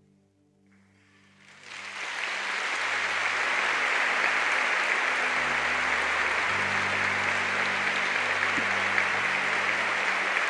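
Large crowd applauding, starting softly about a second in and swelling within a second or so to steady, sustained clapping.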